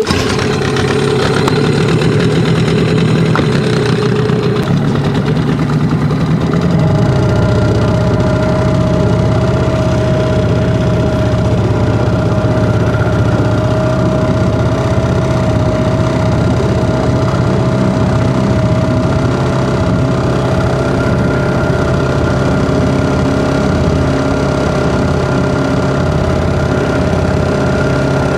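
Gladiator 9.8 hp outboard motor running steadily, its engine note changing about six or seven seconds in.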